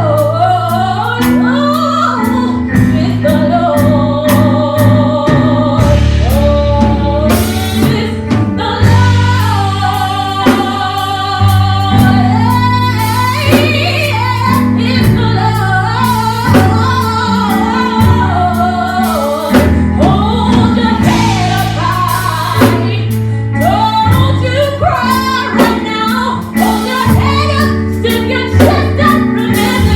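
Gospel worship music: a lead singer with a band of bass, keyboard and drums.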